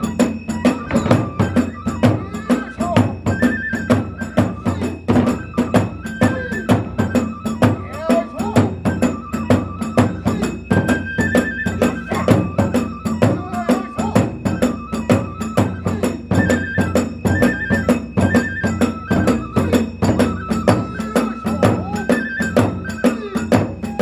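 Kagura hayashi accompaniment: a fast, even beat of drum and small hand cymbals, with a bamboo flute playing short repeated high phrases over it.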